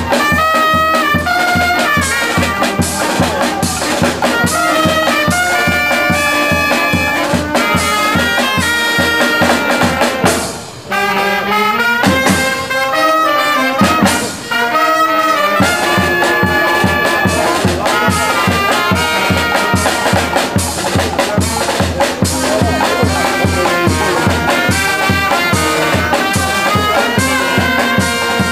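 Peña brass band playing a tune: trumpets, trombones and saxophones over a steady drum beat. The drum beat drops out for a few seconds around the middle, then comes back.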